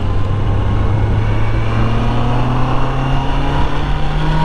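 Honda CB650R's 649 cc inline-four engine pulling under way, its pitch climbing slowly and steadily as the motorcycle accelerates.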